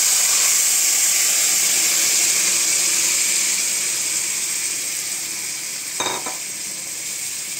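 Marinated chicken pieces sizzling in hot mustard oil in a kadai, loud just after they go in and dying down steadily. A brief knock about six seconds in.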